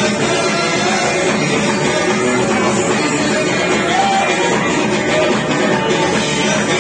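Live Amazigh tagroupit band playing: banjo, electric guitar and frame drums keeping a steady beat, with a man singing.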